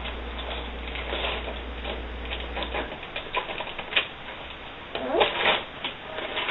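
Wrapping paper crinkling and tearing in quick irregular crackles as a present is unwrapped by hand.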